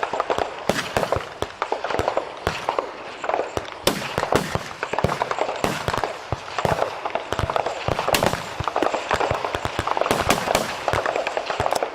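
Rifle shots from many service rifles firing at once along a firing line, sharp reports coming irregularly and overlapping, several a second.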